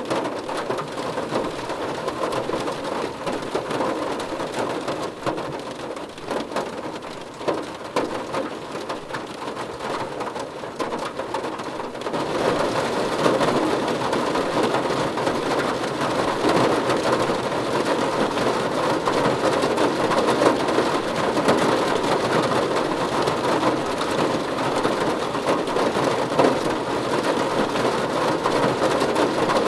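Steady rain falling, an even hiss and patter. About twelve seconds in it turns abruptly louder and brighter, as if the rain has suddenly become heavier.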